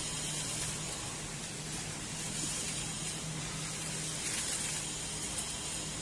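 Steady, even hiss with a faint low hum underneath, without distinct crinkles or clicks.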